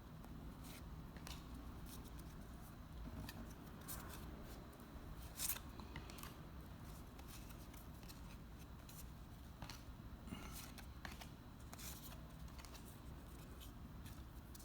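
Faint, irregular clicks and soft rustles of trading cards being handled and flipped through one at a time, over a low steady hum.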